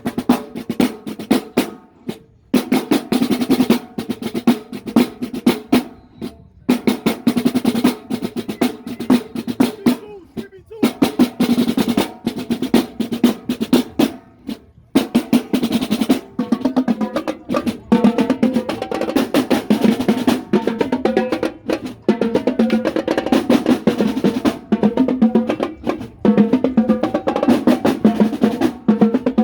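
Marching band drumline playing a fast, snare-heavy cadence of rapid rolls and strokes. In the first half it breaks off briefly every few seconds, then plays on more steadily.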